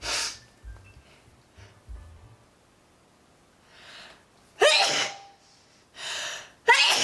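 A person sneezing twice in quick succession: allergy sneezes. Each is set off by a noisy intake of breath, and the two come about two seconds apart in the second half.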